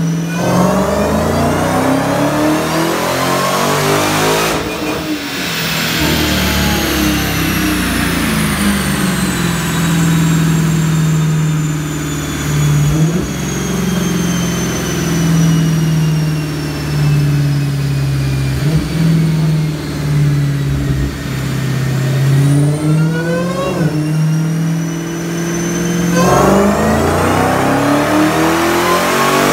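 Dodge Challenger SRT Hellcat Redeye's supercharged V8 on a chassis dyno: revs climb hard in the first few seconds of a pull, then a high whine falls slowly in pitch as the run winds down. About 22 seconds in the revs climb again, and the engine is running hard near the end.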